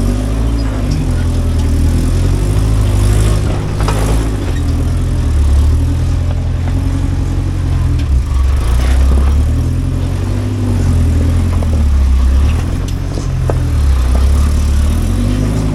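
Off-road vehicle's engine running, its speed rising and falling repeatedly as the throttle is worked.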